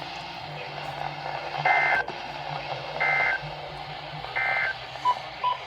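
NOAA Weather Radio EAS/SAME header data bursts: three short, shrill two-tone data bursts about a second and a half apart over a steady radio hum, with two brief lower beeps near the end. They are the coded header that opens a new emergency alert message.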